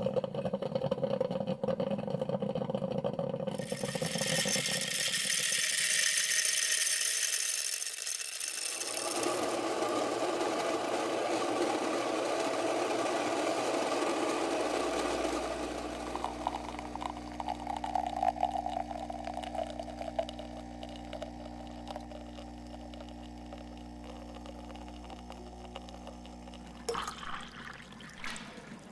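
Rushing, rattling noise, then an electric coffee grinder's motor running with a steady hum as grounds fall through its chute, and a few sharp clinks near the end.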